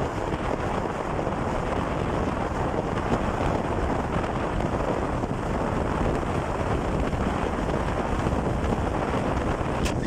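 Steady wind rumble buffeting the microphone of a camera moving along a road.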